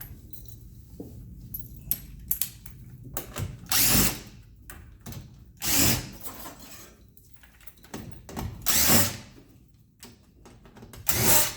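Cordless impact driver run in four short bursts, backing out the screws or nuts that hold the AC unit's panel cover.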